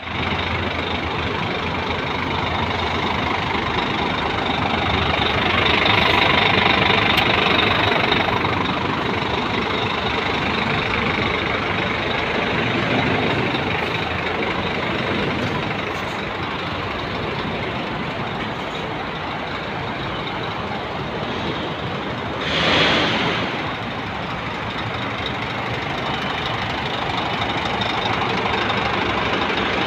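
Scania P410 tractor unit's diesel engine idling steadily with a low clatter. About three-quarters of the way through there is a brief, louder rush of hissing noise.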